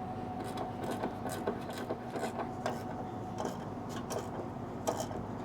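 Irregular metallic clicks and scrapes of a 1/2-inch ratchet working a door hinge spring removal tool, compressing the spring on a car door hinge. A faint steady hum runs underneath.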